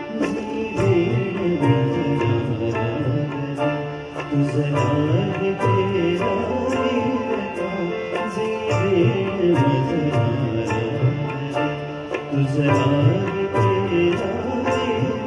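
A man singing a Marathi song live into a microphone, accompanied by harmonium and a steady percussion beat.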